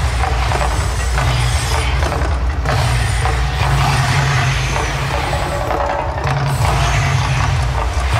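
Gas-fired flame effects of an artificial volcano show bursting and hissing in repeated surges, over a steady deep rumble and the show's soundtrack played over loudspeakers.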